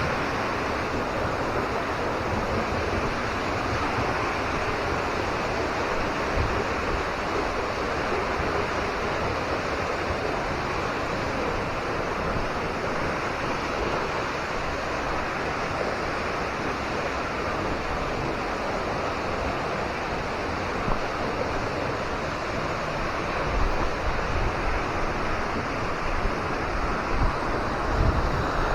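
Steady rush of a waterfall's falling water. Near the end, wind buffets the microphone.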